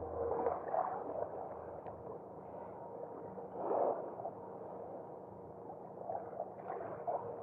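Soft gurgling water splashes in short, irregular bursts: about a second in, near four seconds, and again around six to seven seconds. A faint steady hum runs underneath.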